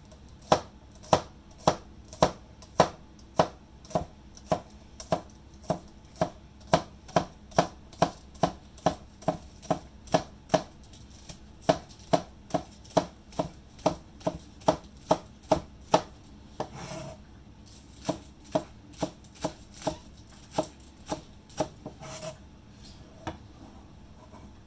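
Knife chopping scallions on a cutting board, sharp evenly spaced strokes about twice a second. The chopping pauses briefly about two-thirds through with a short scrape, then picks up again.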